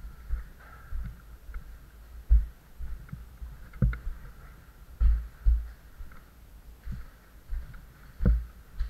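Irregular dull thumps and knocks, about one or two a second, from a caver moving through a cave passage, over a faint steady hiss.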